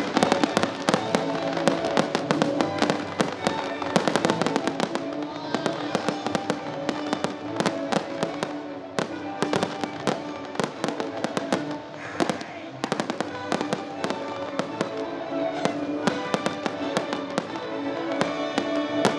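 Fireworks display: aerial shells bursting in a dense, continuous run of bangs and crackles, with music playing underneath.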